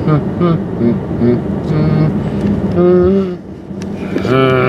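A person's voice making short wordless sounds, then one long held note near the end, over the steady road noise inside a moving car.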